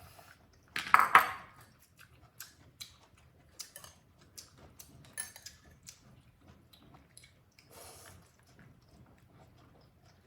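A plate and dishware clattering as a baby monkey handles and carries it. One loud clatter comes about a second in, followed by scattered small clinks and taps.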